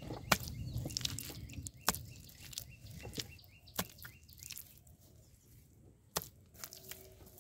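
Wet mud slapped and pressed by hand onto a frame of sticks: a few sharp wet slaps a second or two apart, the loudest in the first two seconds, with low handling noise in between.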